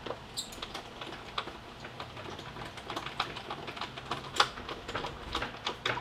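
Small hardware and tools being handled: irregular light clicks and taps, with one sharper knock about four and a half seconds in.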